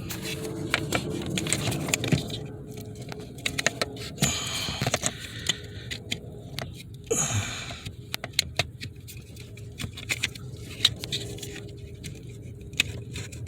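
Irregular clicks, knocks and rattles of hand work under a car's dashboard: a replacement accelerator pedal assembly being fitted and its sensor connector plugged in.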